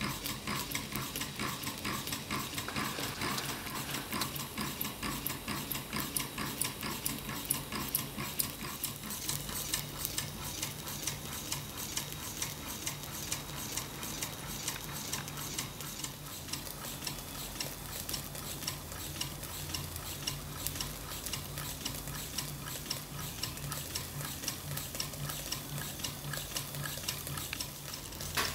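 Homemade gamma Stirling engine running slowly, with a steady rapid clicking over a low hum, a sound like an old engine.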